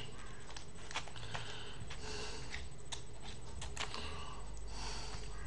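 Mouth sounds of a man chewing smoked mackerel: small wet clicks and smacks, scattered about once a second, over a steady low hum.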